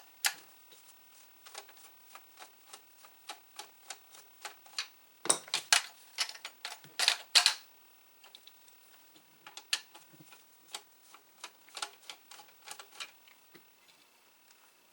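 A screwdriver clicking and tapping on small metal screws while backing them out of a disk drive's plastic case, in irregular bursts. The loudest, quickest run of clicks comes about five to seven seconds in.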